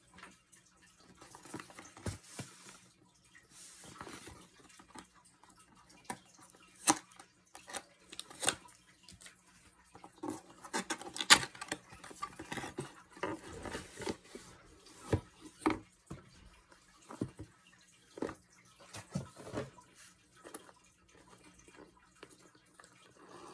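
Unboxing of Soundcore Life Q30 headphones: the packaging and the headphone carrying case are handled, giving scattered sharp clicks and taps with short stretches of rustling. The loudest click comes about eleven seconds in.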